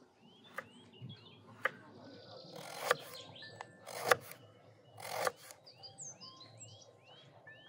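Kitchen knife slicing an eggplant lengthwise into thin slabs on a wooden cutting board. There are two light taps, then three strokes about a second apart, each a rising swish through the flesh ending in a sharp tap on the board. Small birds chirp in the background.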